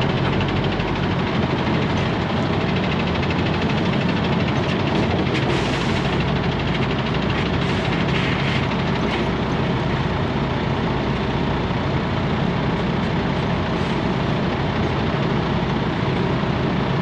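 Heavy tow truck's diesel engine running steadily, a constant low drone with a haze of mechanical and road noise.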